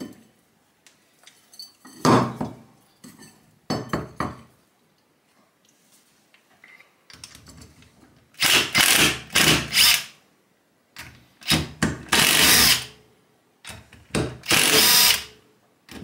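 A few knocks of metal parts being handled, then a cordless drill-driver running in several bursts of a second or two, backing out the screws that hold the compressor's motor stator in its housing.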